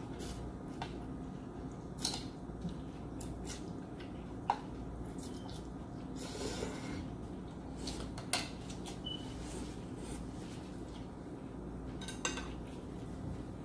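Ramen noodles being slurped and eaten with wooden chopsticks from porcelain bowls: scattered sharp clicks of chopsticks on the bowls, and a longer slurp about six and a half seconds in.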